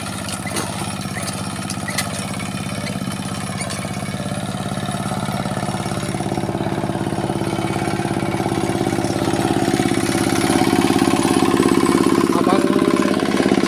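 Kubota kuliglig hand tractor's single-cylinder diesel engine running steadily while it pulls a harrow over ploughed soil. It grows louder in the last few seconds as the tractor comes close.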